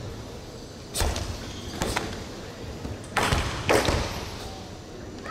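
Four sharp thuds and snaps from a sai kata performance: bare feet stamping on a wooden hall floor and the karate gi snapping with the strikes. One comes about a second in, one just before two seconds, and the two loudest come close together between three and four seconds in.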